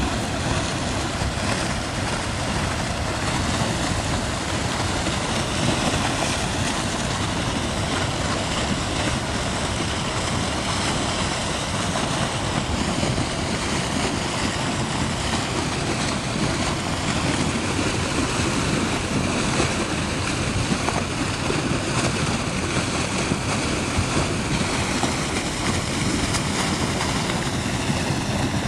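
Steady rushing of a flash-flood torrent of thick grey, silt-laden mud and water pouring across the valley floor.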